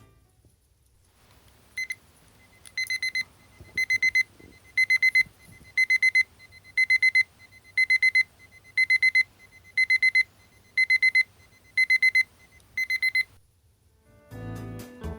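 Electronic fishing bite alarm beeping: a high, steady electronic tone in quick bursts of four or five beeps, repeating about once a second. It starts about two seconds in and stops about thirteen seconds in.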